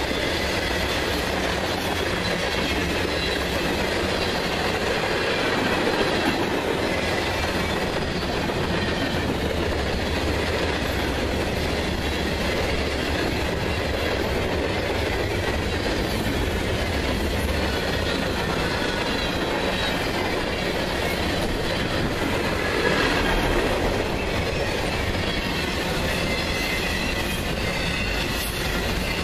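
Cars of a passing mixed freight train rolling by close at steady speed: a continuous rumble and clatter of steel wheels on the rails, with a faint high squeal from the wheels.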